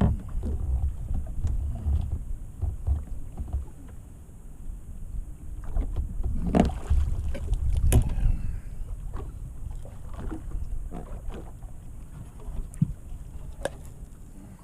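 Wind rumbling on the microphone aboard a fishing boat, with scattered knocks and taps, the loudest about six and a half and eight seconds in.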